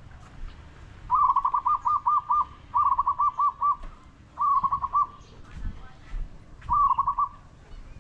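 A bird calling in four bursts of quick, repeated ringing notes, about five notes a second, with pauses between the bursts.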